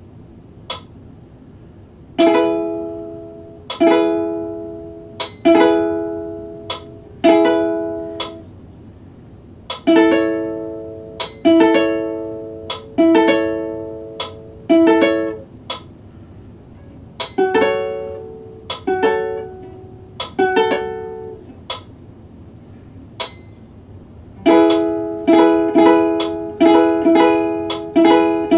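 Ukulele chords strummed slowly, about one strum every one and a half seconds, in short phrases with pauses between, turning to quicker strums near the end. A metronome's faint ticks, one per beat, are heard in the pauses.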